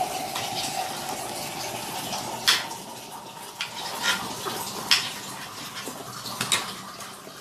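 Water bubbling in a hot metal kadai with chopped vegetables as it is stirred, the metal ladle knocking against the pan several times. The knocks about two and a half and five seconds in are the loudest.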